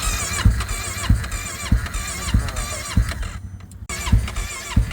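Motorcycle engine being cranked on its electric starter, turning over slowly: a low thump about every half second, with the starter's whine dipping in pitch at each compression.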